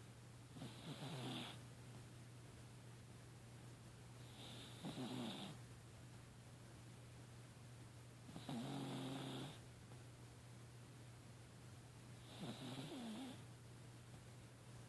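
Slow snoring: four snores, each about a second long and roughly four seconds apart, each with a low rattle and a breathy hiss.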